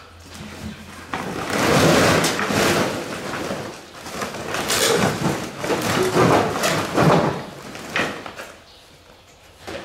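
Scraping and rattling of scrap metal and other junk being shifted in a cluttered pile, in two long noisy stretches that die down near the end.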